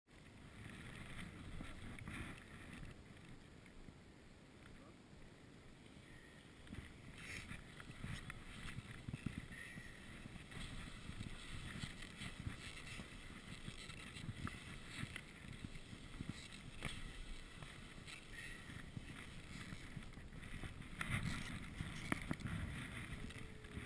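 Skis sliding and scraping over snow, an irregular swishing with small knocks, with wind rushing on the microphone.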